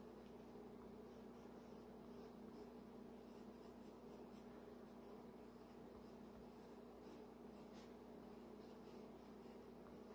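Faint scratching of a colored pencil on paper, in short irregular strokes, over a steady low hum.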